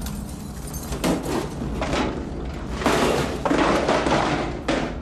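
Steady low drone of an aircraft cabin, with several rough, noisy bursts over it, the loudest stretch about three to five seconds in.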